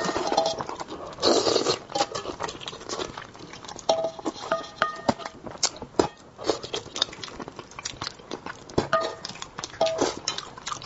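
Close eating sounds of a person eating braised fish: chewing, sucking and lip smacking, with many sharp clicks and a few short slurps.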